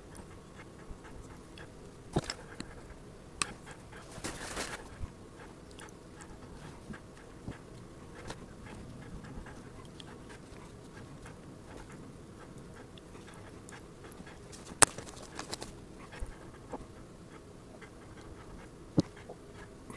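Faint clicks, taps and rustles of small metal airbrush parts being handled and fitted together by hand as a Badger Krome airbrush is reassembled, with a sharper click about fifteen seconds in.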